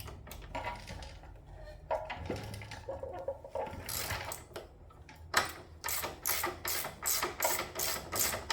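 A hand ratchet turning a 17 mm hex bit to unscrew a motorcycle's threaded front axle. Light metallic clinks come first as the bit is seated. From about halfway through, the pawl clicks steadily, about three clicks a second.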